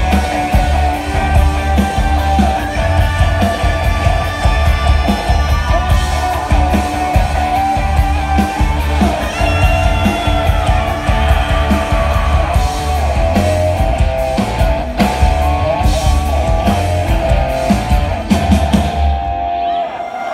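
Rock band playing live at full volume: drums and bass guitar under electric guitars, with a held melodic lead line. The song comes to its end and the band stops just before the close.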